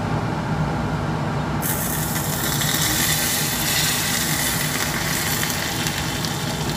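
Hot liquid poured from a small saucepan onto sliced ginger in a glass bowl, setting off a loud, even sizzling hiss that starts suddenly about two seconds in. A steady low hum runs underneath.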